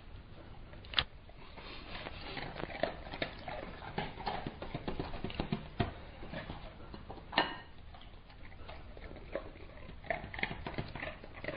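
A yellow Labrador chewing and crunching food: a dense run of irregular wet clicks and crackles, with two sharper knocks, about a second in and about seven seconds in.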